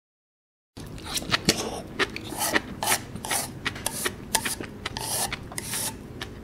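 Close-miked chewing of sea grapes (latok), the small beads bursting in quick, irregular clicks and crackles with wet mouth sounds. The sound starts abruptly about a second in, after dead silence.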